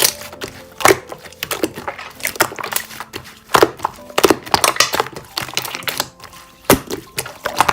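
Slime being squeezed and pressed by hand, giving irregular crackling and sharp popping clicks, about a dozen strong pops.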